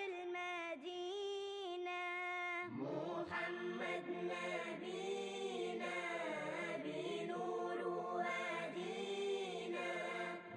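Background vocal music, an a cappella devotional chant (nasheed). A single voice sings a drawn-out melody, and a fuller layered choir of voices joins in about three seconds in.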